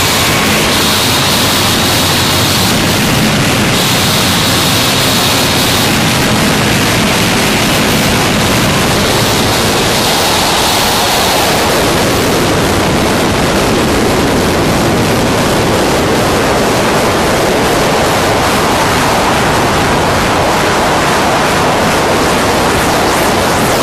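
Harsh noise music: a loud, unbroken wall of dense static. A faint high tone cuts in and out three times in the first dozen seconds.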